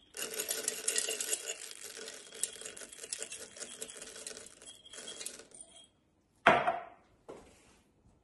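Nuts being poured into the Thermomix's stainless steel mixing bowl, a dense rattling patter of small hard pieces that runs for about five seconds. A single louder knock follows about a second later.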